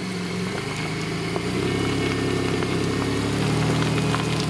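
Mitsubishi Pajero Sport's engine running under load as the SUV tries to climb a muddy step, its revs picking up about a second and a half in and rising again near the end.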